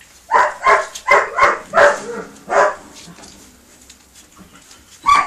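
Puppy yapping: a quick run of about six short, high yaps in the first three seconds, then one more near the end.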